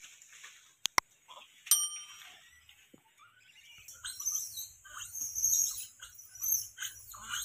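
A click, then a bell-like ding in the first two seconds, from a subscribe-button sound effect. From about 4 s, gray langurs give repeated short calls in bursts as two of them grapple in a fight.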